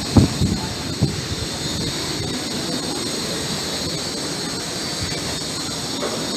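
Freight train of BTPN tank wagons rolling slowly past on the rails: a steady rumble and hiss, with a few clanks in the first second.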